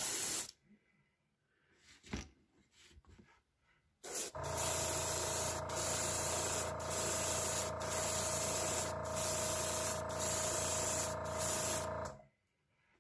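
Gravity-feed airbrush spraying paint: a steady hiss of air with a hum beneath it. It stops about half a second in and starts again about four seconds in. The second pass runs for about eight seconds, with brief breaks in the hiss about once a second.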